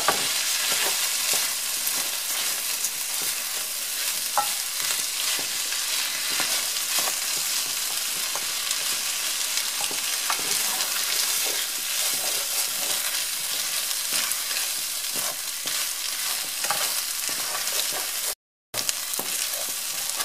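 Rice, chicken and onion sizzling in butter in a pan while a wooden spoon stirs and scrapes through them, toasting the rice until it turns translucent. The sound cuts out briefly near the end.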